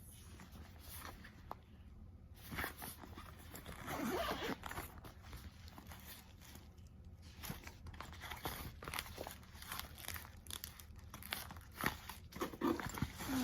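Packaging rustling and crinkling, with scattered clicks and knocks, as a blood pressure monitor is unpacked from its box; the rustling is densest between about two and five seconds in.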